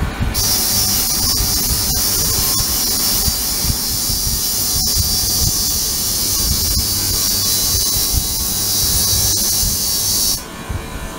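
Ultrasonic cleaning tank running: a steady, loud high-pitched hiss that switches on abruptly about half a second in and cuts off just before the end, over a low rumble.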